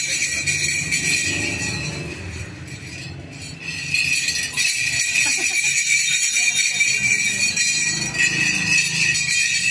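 Steady metallic jingling and clinking, like a small hand-held bell instrument being shaken, with a brief lull a little over three seconds in.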